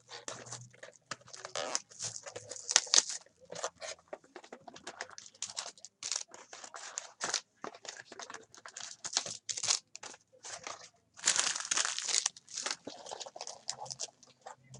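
Trading card packaging being torn open and handled: wrapper tearing and crinkling, with cards scraping against each other in many short, irregular strokes.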